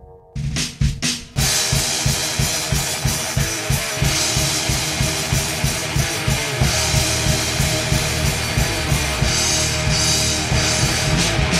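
Thrash metal song kicking in: three sharp full-band stabs in the first second and a half, then distorted electric guitars, bass and a drum kit playing a fast, steady pounding beat.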